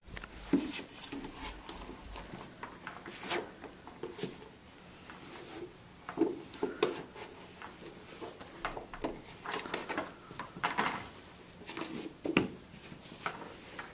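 Paperback books being handled and gathered up: irregular soft knocks and rustling pages and covers as they are shuffled in the hands and picked up off a carpeted floor.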